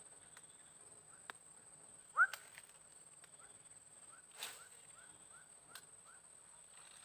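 Casting a lure with a baitcasting rod and reel: a short, sharp rising whistle about two seconds in, then a brief swishing rush midway through, with a few faint clicks and chirps over a steady high-pitched whine.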